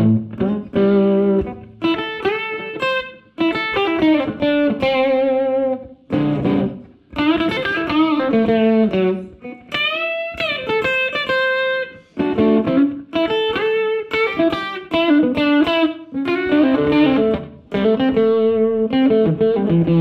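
Electric guitar, an Oscar Schmidt OS-50, played through a Fender Mustang LT25 amp on its Chicago Blues factory preset. It plays phrases of single-note licks and chords, with vibrato on held notes and string bends about halfway through.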